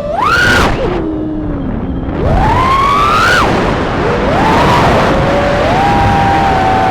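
Small 3-inch FPV quadcopter's brushless motors and propellers whining over a rushing noise, the pitch swooping up and down with throttle: it dips low, climbs steeply to a peak about three seconds in and drops, then holds a fairly steady tone.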